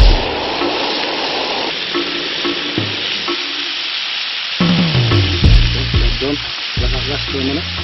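Rump steak frying in a hot pan: a steady sizzle. Music plays underneath.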